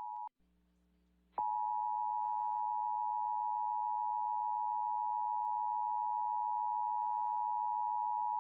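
Emergency Alert System attention signal: the steady two-tone alert tone of 853 and 960 Hz sounded together. A first stretch of the tone breaks off just after the start. About a second of faint hum follows, then the tone starts again abruptly and holds steady.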